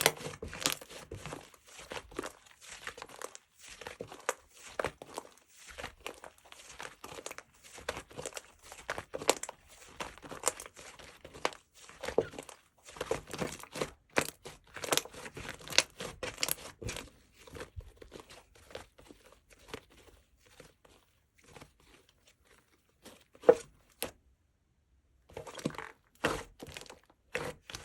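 Slime being squeezed, stretched and poked by hand, giving dense, irregular crackling and crunching clicks, with a short pause near the end.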